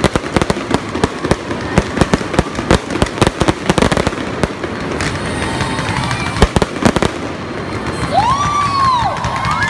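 Aerial fireworks going off in a rapid barrage of bangs and crackling, thinning out after about five seconds to a couple of single bangs over a steady hiss. Near the end, two rising-then-falling whistle-like tones sound over it.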